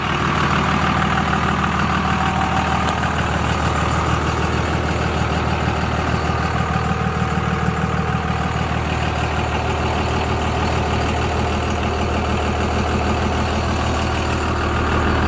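P-pump 24-valve 5.9 L Cummins inline-six turbo diesel idling steadily, with an even low hum.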